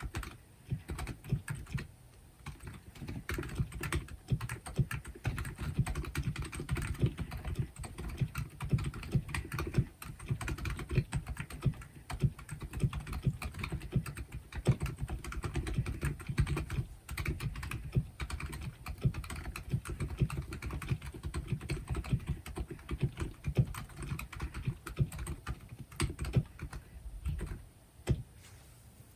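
Continuous typing on a Womier K66 mechanical keyboard with stock, unlubricated Silent Alpaca silent linear switches, on a deskmat. The keystrokes are dull and muffled, with the weight of the sound low down, and the typing pauses briefly about two seconds in and near the end.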